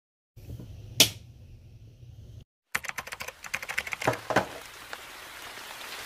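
An LED desk lamp's switch clicks once, sharply, about a second in, over a low hum. After a short break, a fast, uneven run of light clicks and taps begins, with two heavier knocks in the middle.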